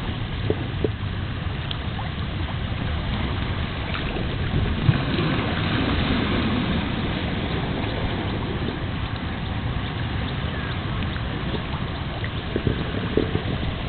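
Steady low rumble under a constant wash of wind and water, with a few faint knocks.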